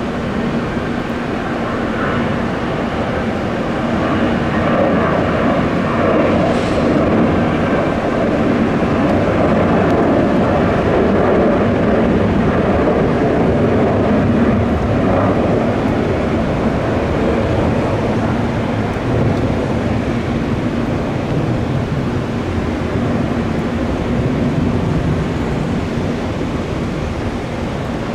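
Jet airliner engines running: a steady noise that grows louder over the first several seconds and then eases slightly.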